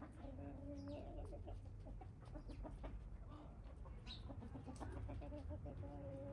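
Domestic chickens clucking, with two stretches of drawn-out, wavering hen calls over a low background rumble.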